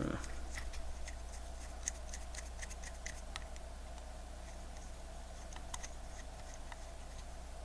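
Small, sharp metal clicks and scrapes of a watch case back's screws being screwed down by hand, coming in quick irregular clusters over the first few seconds and thinning out later, after a soft thump at the start.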